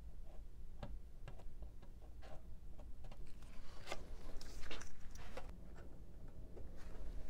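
Faint scratching of a pen or pencil tracing lines across balsa wood, with light clicks of small tools being handled; the scratching strokes bunch up about four to five seconds in.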